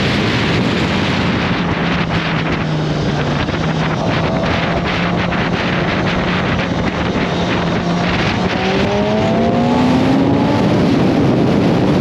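Kawasaki ZX-10R's inline-four engine holding a steady note while riding, with wind rushing over the microphone, then rising in pitch as it accelerates from about eight and a half seconds in.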